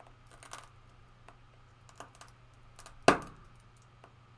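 Tungsten carbide scratch awl tip tapping and scraping on non-original iPhone 8 Plus back glass: a few faint, scattered clicks, then one sharp, much louder crack about three seconds in as the glass breaks under light pressure.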